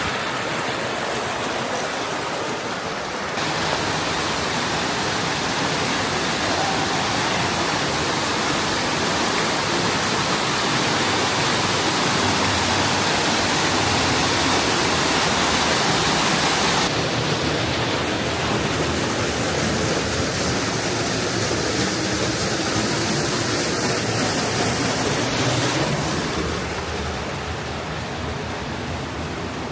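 Steady rushing noise spread across all pitches, like falling water or wind, with abrupt changes in its tone about three seconds in, about seventeen seconds in and near the end.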